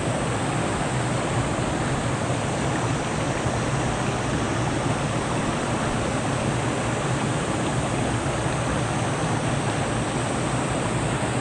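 Rushing water of a small mountain stream, a steady, unbroken noise.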